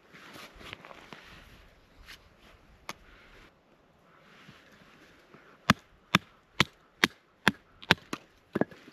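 Chopping on wood: a few light scattered knocks and rustling, then a steady run of about seven sharp chops at roughly two a second from a little past halfway, and one more near the end.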